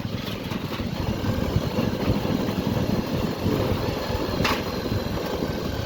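Motorcycle engine running at low speed with a steady low rumble, with a brief rattle about four and a half seconds in.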